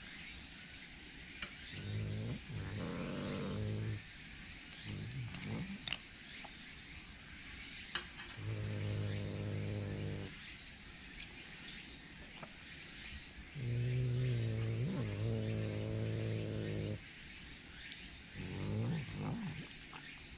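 Tsushima leopard cat growling: five low, drawn-out growls, the longest about three seconds, the cat taking horse meat held out on tongs.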